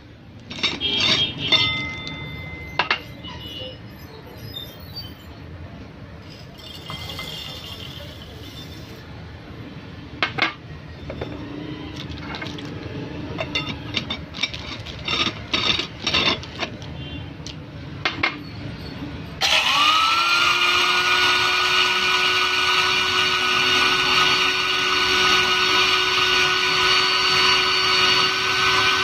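Clinks and knocks of metal and glass being handled, some ringing briefly. About two-thirds of the way through, the Silver Crest 1000-watt high-speed powder grinder's motor switches on, spins up with a quick rising whine and then runs at a steady, loud whine.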